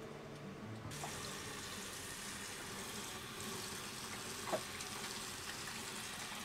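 Water spraying onto the deck and window overhead, a steady hiss heard from inside the boat's cabin, as the deck is wetted to check whether the sealed leak holds. A short knock sounds about four and a half seconds in.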